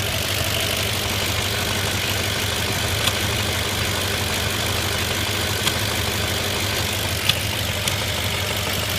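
2005 Audi A6 4.2's V8 engine idling steadily, broken a few times at irregular moments by short sharp thumps. The owner suspects misfires, with the thumping coming from the throttle body or intake manifold.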